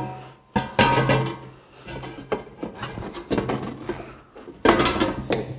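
Two halves of a sheet-metal gutter being handled and set down on a wooden workbench: two sharp metallic knocks, one about half a second in and one near the end, each leaving the thin sheet ringing briefly, with quieter rubbing and clatter of the metal between.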